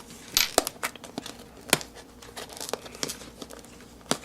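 Packaging of a camcorder box being handled and pried at: crinkling, tearing and a string of sharp clicks and scrapes. The box is difficult to open.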